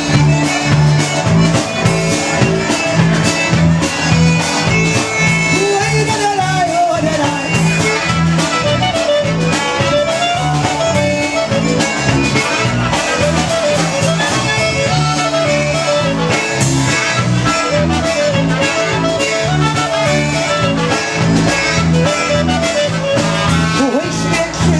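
Live polka band playing a polka: concertina, clarinet and trumpet over upright bass and drums, with a steady beat.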